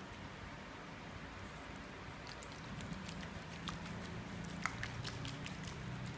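Wooden chopsticks stirring and brushing silkworm cocoons in a pot of water, drawing up loose silk filament ends to begin reeling. Light clicks and scratchy ticks grow busier from about two seconds in, over a low steady hum.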